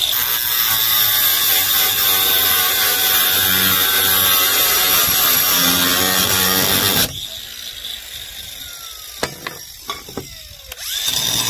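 Angle grinder with a Bad Dog cutting wheel cutting through a metal bracket: a loud, steady grinding whine for about seven seconds. The cut ends suddenly, the grinder spins down with a falling whine while a few light clicks and knocks sound, and near the end it is switched on and runs loud again.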